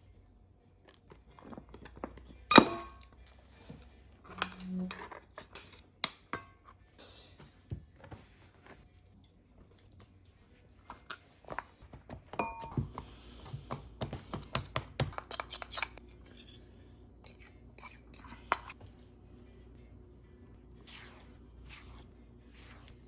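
Kitchen bowls and utensils clinking and knocking while baking, with a sharp knock about two and a half seconds in and a quick run of clicks around the middle.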